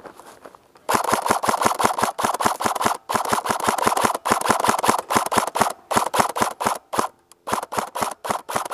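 Airsoft electric rifle firing on full auto: long bursts of rapid shots with short breaks between them.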